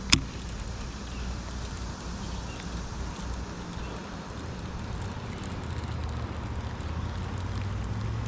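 A single sharp click from a baitcasting reel just after the start, then steady low humming with a low tone that grows stronger in the second half, under faint ticking.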